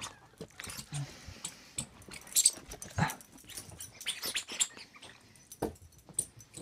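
Small dog playing with a toy: a busy run of scuffs, rustles and clicks, with a louder thump about three seconds in and another near the end.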